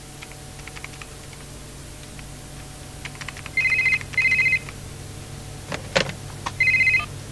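Light tapping on a laptop keyboard, then a cordless telephone's electronic ring: two short bursts close together, and after a pause of about two seconds a third. A sharp clack comes just before the last ring as the handset is picked up.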